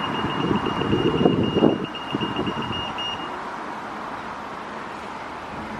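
A high-pitched electronic warning beeper pulsing rapidly, several beeps a second, over a low machinery rumble. The rumble drops away about two seconds in, and the beeping stops about a second later.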